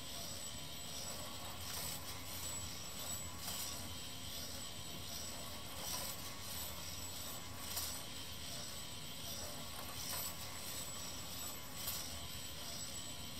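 Meccano ping-pong ball roller running: a steady low hum from its motor-driven lifting mechanism, with ping-pong balls rolling along the metal strip tracks and light clicks and knocks every second or two as they drop and strike the parts.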